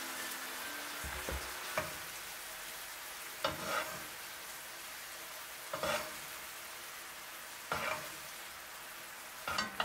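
Chicken pieces sizzling in teriyaki sauce in a frying pan over low heat, a steady hiss. A spoon scrapes and taps against the pan every couple of seconds as the sauce is spooned over the chicken.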